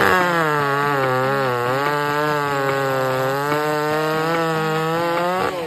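Chainsaw running at high revs through wood, its pitch holding fairly steady with small wavers, then falling away near the end.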